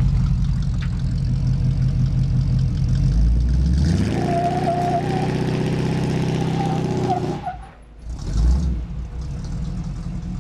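Truck engine running with a pulsing, lumpy note, then revving up about four seconds in and holding before it drops off sharply near eight seconds.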